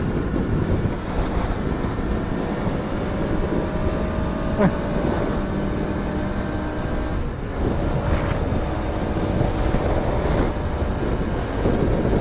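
Wind rumbling on the microphone over motorcycle engines running, their pitch shifting now and then. There is a short sharp click about four and a half seconds in and another near ten seconds.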